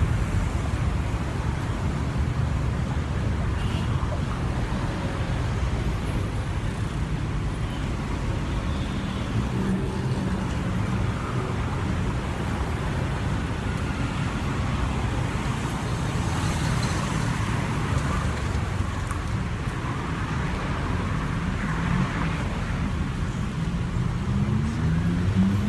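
Steady road traffic: the low rumble of car engines and tyres on a city street, with one vehicle's engine rising in pitch near the end.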